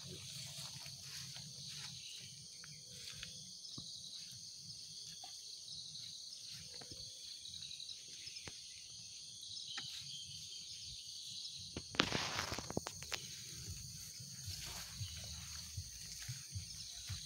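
Insects chirping steadily in the background as a high, pulsing trill, with scattered faint clicks and a brief burst of rustling about twelve seconds in.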